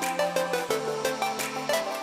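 Electronic background music with a steady beat and short melodic notes.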